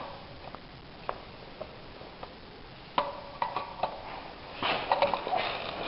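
Scattered light clicks and knocks from handling a homemade airsoft 40mm grenade launcher and its shell while loading it, with a sharper click about three seconds in and a busier run of handling noises after it.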